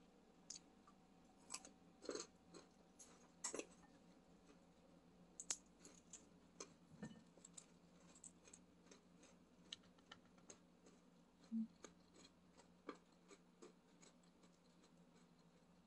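Faint, sparse mouth sounds of someone chewing food and smacking their lips, with scattered small clicks.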